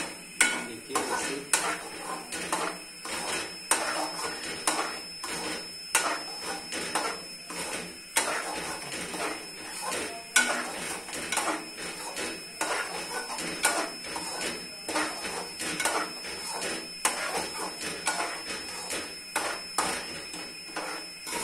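A steel spoon scraping and knocking against a metal karahi as semolina is stirred and roasted, in irregular strokes about once or twice a second.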